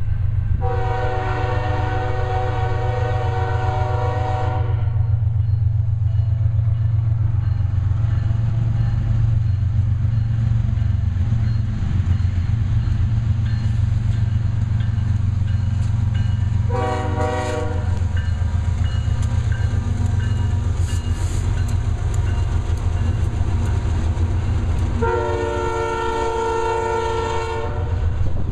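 Air horn of a Union Pacific GE ES44AC freight locomotive sounding three times, a long blast at the start, a short one in the middle and another long one near the end, over the steady low rumble of the approaching diesel freight train and its auto rack cars rolling over the rails.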